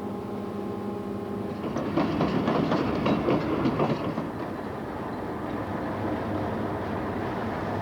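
Train running on the track: a steady engine hum, then wheels clattering over rail joints, loudest about two to four seconds in.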